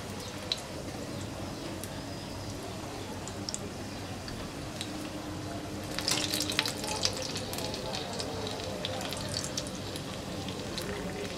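Sabudana vadas deep-frying in hot oil over a medium flame: a steady bubbling sizzle with scattered crackles, growing louder and busier for a second or so about six seconds in.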